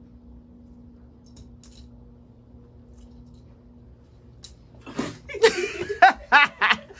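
Quiet room with a steady low hum, then a light knock and a burst of laughter from about five seconds in.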